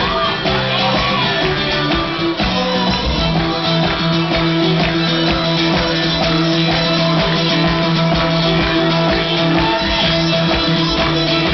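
Live folk band playing: bowed fiddle over strummed guitar, with a steady held low note underneath that breaks off briefly about two seconds in.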